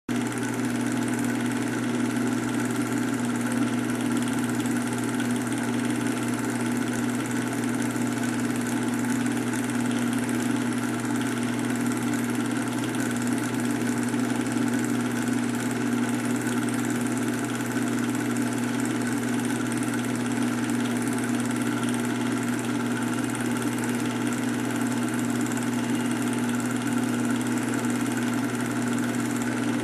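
Steady hum with hiss and no break or change: the running noise of a film projector playing back a silent reel.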